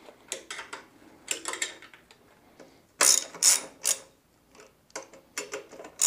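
Short metallic clicks, clinks and rattles as a motorcycle battery is set back into its tray and its terminal bolts are fitted by hand, loudest about three seconds in.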